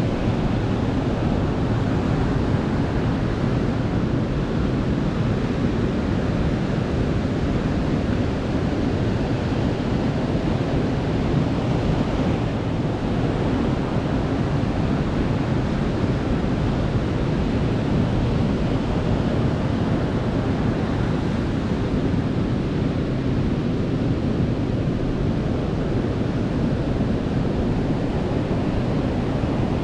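Ocean surf washing onto a beach: a steady, unbroken rush of water noise, deepest in the low end, with no single wave standing out.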